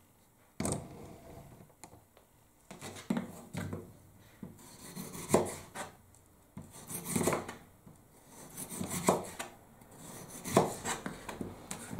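Kitchen knife slicing peeled raw potatoes on a plastic cutting board: a knock of the blade on the board with each cut, at uneven intervals roughly a second apart.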